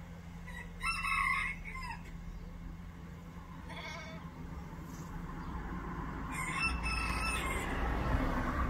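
Rooster crowing: one long crow about a second in, a shorter call near four seconds, and another long crow near the end.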